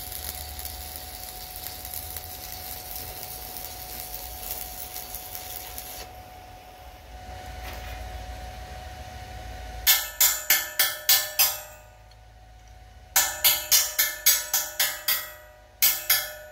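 Stick-welding arc crackling and hissing with a 7018 rod for the first several seconds, then stopping. From about ten seconds in, two quick runs of ringing metal strikes on steel, about four a second, and a single strike near the end.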